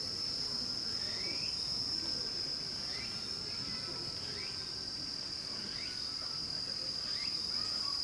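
Crickets trilling in a steady, unbroken, high-pitched chorus, with a few faint short rising chirps behind it.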